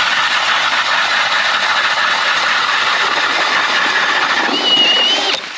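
Cordless Milwaukee M18 FUEL drill spinning an ice auger through lake ice, a steady grinding run as the blades chew the ice into chips. A high whine comes in near the end, then the drill stops abruptly.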